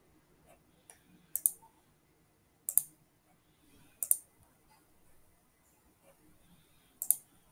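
Computer mouse buttons clicking: four sharp clicks spaced a second or more apart, each made of two quick ticks, with a fainter click just before the first.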